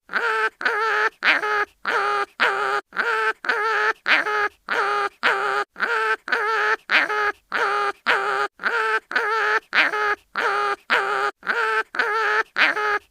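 Cartoon animal's pained crying sound effect: a short, nasal, pitched cry repeated about twice a second, evenly, like a loop.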